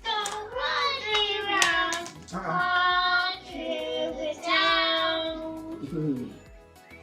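Singing in a child-like voice with music: a few sung phrases, two long held notes, the last sliding down in pitch near the end.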